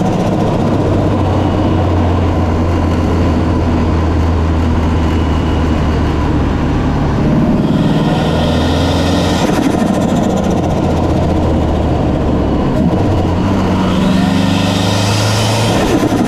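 Mitsubishi Lancer Evolution IV's turbocharged 2.0-litre four-cylinder engine idling, revved twice, about halfway through and again near the end. Each rev brings a rising turbo hiss that falls away as the throttle closes: the turbo flutter of compressor surge.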